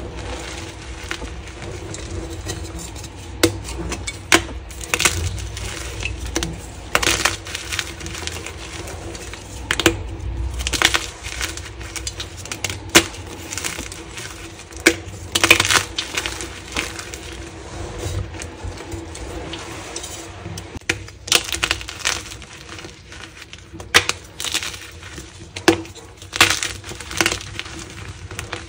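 Hands crushing and crumbling pieces of dyed gym chalk blocks in a heap of chalk crumbs: dry, irregular crunching and crackling with frequent sharp snaps.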